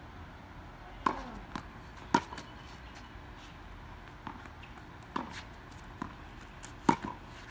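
Tennis balls popping off a racket and bouncing on a hard court: about seven sharp, irregularly spaced pops, the loudest about a second in, about two seconds in and near the end.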